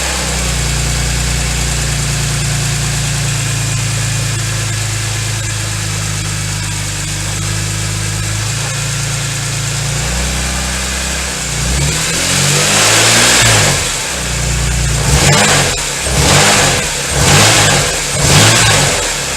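BMW E46 M3's S54 inline-six engine idling steadily, then blipped up in about five short revs over the last seven seconds. The owner reports a rattle only around 2000 rpm and wonders whether low engine oil is the cause.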